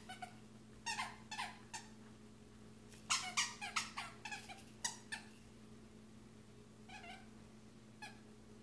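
A plush squeaky toy squeaking as a vizsla chews it. The short, high squeaks come in clusters: a few about a second in, a rapid run of them a few seconds in, and a couple more near the end.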